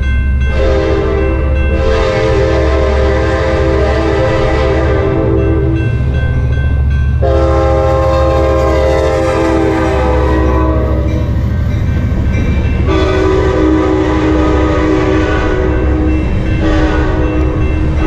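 Sounder commuter train's diesel locomotive sounding its multi-note air horn in long blasts as it runs through a grade crossing, over the low rumble of the train. The horn sounds lower on the later blasts, once the locomotive has gone by.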